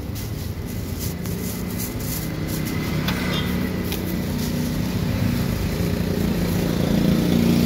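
An engine running steadily, its low hum growing louder toward the end.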